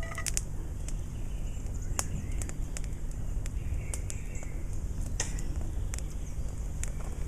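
Wood campfire crackling under a cast iron skillet, with scattered sharp snaps a second or so apart over a steady low rumble.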